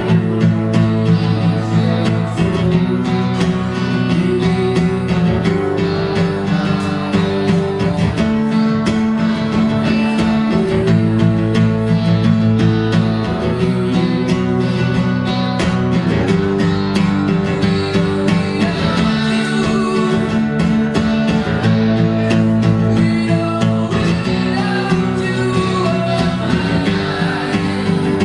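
Live music: an acoustic guitar and a second guitar playing a song together, with a low line of notes changing every second or two.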